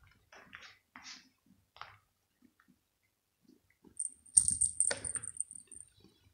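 A few soft rustles and scratches on plush fabric. About four seconds in, a small bell inside a toy ball jingles rapidly for under two seconds, with a couple of dull knocks as the ball is jostled.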